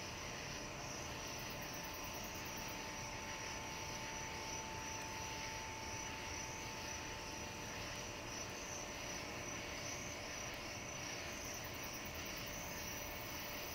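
Outdoor night ambience: a steady chorus of insects over an even, low background rumble, with no distinct events.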